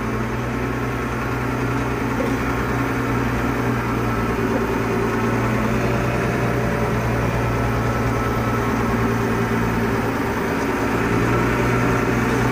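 Diesel engine of a Volvo BM 861 articulated dump truck running steadily, a little louder in the last couple of seconds.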